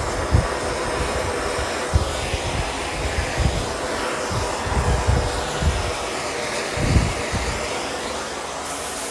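Hose-fed gas hand torch burning against a car's steel body panel, heating it for tinning before lead filling: a steady hiss of flame with an uneven low rumble that flutters throughout.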